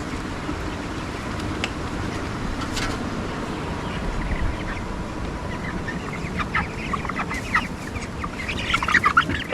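A flock of broiler chickens clucking and calling over a steady low background noise. The calls grow denser and louder in the last few seconds. The birds are agitated after being chased for weighing.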